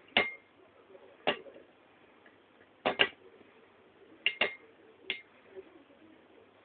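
Two Beyblade tops with metal fusion wheels, Lightning L-Drago and Earth Eagle, spinning in a plastic stadium and knocking into each other: sharp metallic clicks with a brief ring, irregular, about once a second, some coming in quick pairs.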